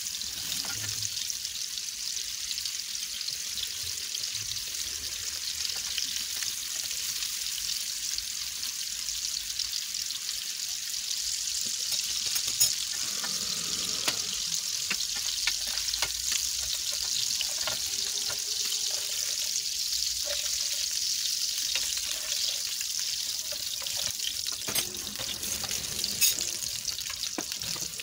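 Meatball patties frying in hot oil in a pan, a steady sizzling hiss, with a few light clicks as a spatula turns them around the middle and near the end.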